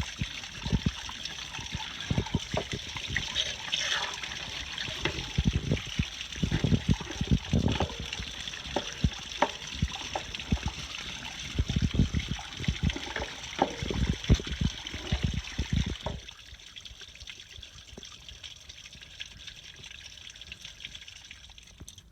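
Water spraying from a hose-end flushing wand inside an RV water heater tank, splashing and gushing back out of the anode port in uneven spurts as mineral deposits are washed out. The spray stops about three-quarters of the way through, leaving a faint trickle.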